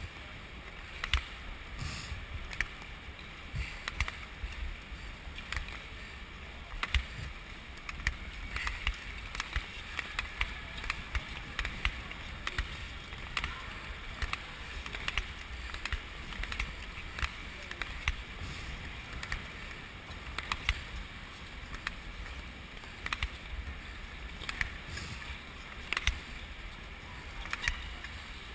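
Speed-skate blades scraping and hissing over the ice stroke after stroke, with frequent sharp clicks, under a low rumble of air rushing past the microphone.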